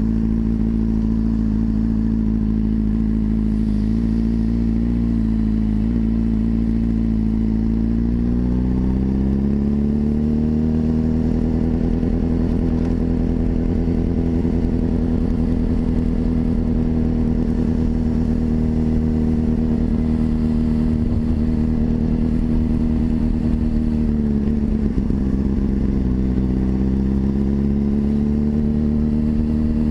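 Motorcycle engine running under way. Its pitch climbs about eight seconds in as the bike speeds up, then holds steady, dips briefly about twenty-four seconds in and climbs again. A steady low wind rumble sits on the microphone underneath.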